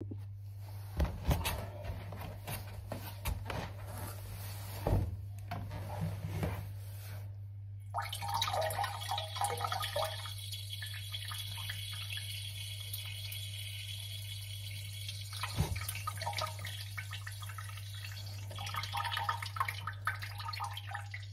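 Water dripping and splashing into a toilet bowl: scattered drops and plops, with stretches of trickling about 8 seconds in and near the end, over a steady low hum.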